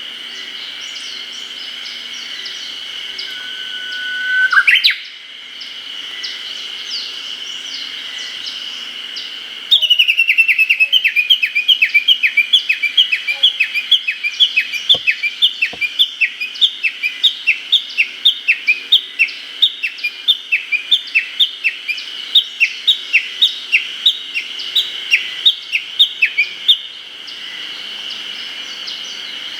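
Japanese bush warbler (uguisu) calling: about four seconds in, a long whistled note that sweeps sharply upward at its end. Then, from about ten seconds, a long run of quick repeated falling 'ke-kyo' notes, about two to three a second: the tani-watari (valley-crossing) call, stopping near the end. A steady high background drone runs underneath.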